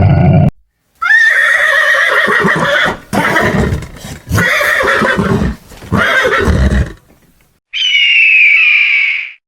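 A horse neighing: a whinny that rises at the start, then several shorter rough bursts with short gaps, lasting about six seconds. Near the end there is a separate, higher, steady call of about a second and a half.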